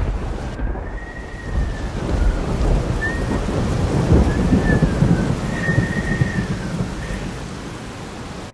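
Low rumbling with a steady rain-like hiss, a thunderstorm sound. A few faint high whistling glides rise and fall through the middle, and the sound cuts off abruptly at the end.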